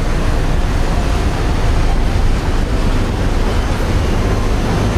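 A boat engine running with a steady low drone under the rush of river water, with wind buffeting the microphone.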